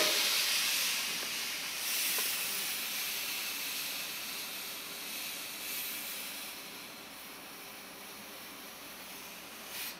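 A steady hiss, loudest at the start and slowly fading toward the end.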